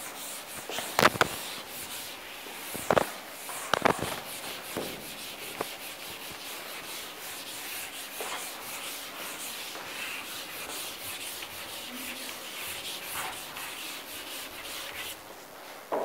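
Chalkboard eraser rubbing across a chalkboard: a steady scratchy swishing that stops shortly before the end, with a few sharp knocks in the first four seconds.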